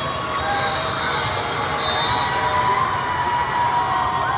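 Busy volleyball hall: volleyballs being hit and bouncing on hard courts with many small knocks, sneakers squeaking on the floor and a steady murmur of voices in a large reverberant room.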